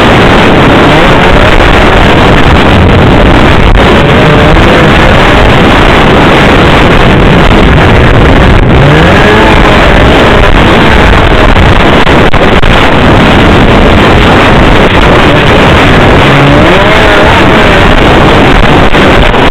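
Snowmobile engine running under way along a trail, loud enough to overload the on-board microphone. Its pitch rises and falls with the throttle about nine seconds in and again around sixteen seconds in.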